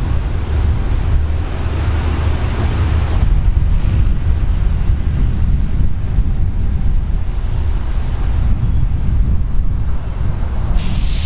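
Hitachi diesel-electric locomotive running with a steady low engine rumble as it draws a passenger train slowly forward. There is a short loud hiss just before the end.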